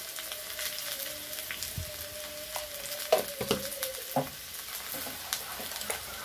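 Potato wedges sizzling and crackling in hot oil in a kadai, with scattered pops of spitting oil. A faint steady whine runs under it for the first four seconds, and a few light knocks come about three to four seconds in.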